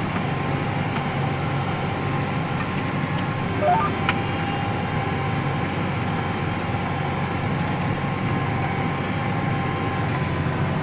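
Tractor engine running steadily under load while towing a pin wheel rake, heard from inside the cab, with a faint steady whine over the drone. A brief rising squeak about four seconds in.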